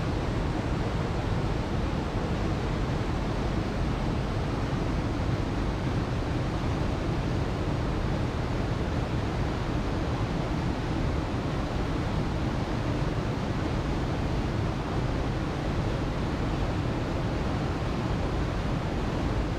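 Waterfall: a steady, even rush of falling water, deepest in the low end, with no breaks or changes.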